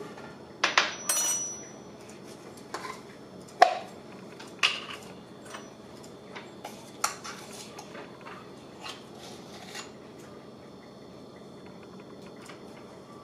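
Metal measuring spoons clinking and knocking against a baking powder can and a stainless steel mixing bowl as baking powder is measured out. Scattered short clinks, the loudest about three and a half seconds in.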